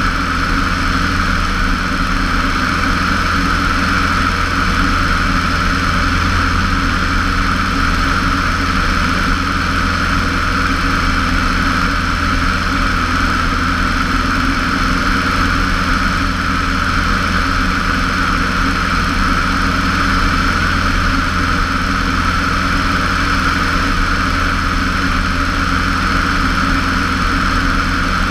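Cessna 150's four-cylinder Continental O-200 engine and propeller running steadily in flight, heard from outside the fuselage.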